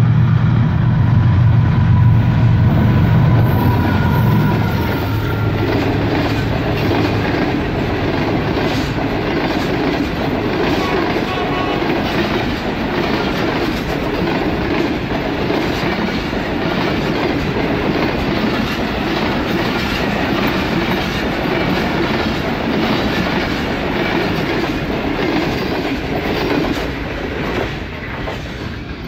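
A GEU-40 diesel-electric locomotive passing at speed, its engine droning loudest for the first few seconds, followed by the coaches of an express train running past with a rapid clatter of wheels over the rail joints, fading away near the end.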